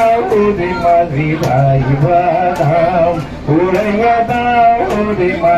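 A man singing a Bengali folk boat song into a handheld microphone, holding long notes that bend in pitch, with short sharp ticks now and then.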